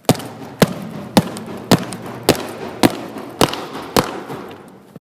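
A sharp impact repeated eight times at an even pace, a little under two a second, over a steady hiss that fades near the end.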